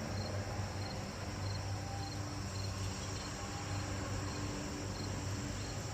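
Cricket chirping steadily, about two short high chirps a second, over a low steady hum.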